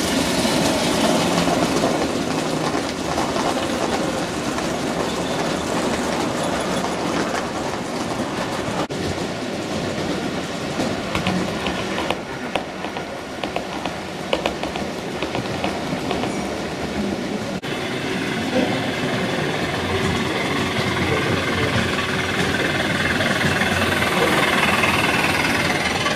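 Gauge 1 model trains running past on the track: a steady rolling of wheels on rails, with a run of clicks about halfway through.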